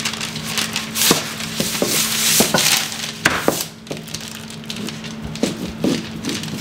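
Rolling pin rolling back and forth over dough between sheets of parchment paper: the paper crinkles and rustles, with scattered small knocks.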